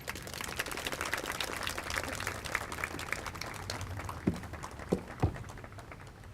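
Audience applause: many hand claps at once that thin out and fade near the end. Three short low blips sound over it near the end.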